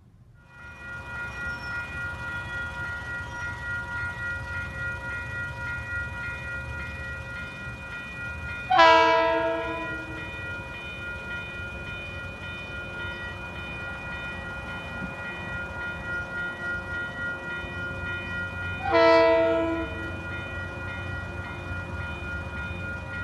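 Grade-crossing warning bells ringing steadily, with two horn blasts about ten seconds apart, each a little over a second long, from an approaching passenger train led by its cab car.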